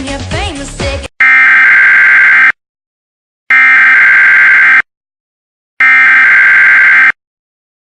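Music cuts off about a second in, followed by three identical loud bursts of warbling data tones, each about a second and a quarter long, with a second of silence between them: the SAME header tones that open an Emergency Alert System alert, here a mock test.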